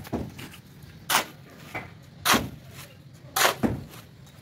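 Hand demolition of brick masonry: sharp knocks of hammers striking brick walls, about one a second, with a deeper thud a little past three seconds in.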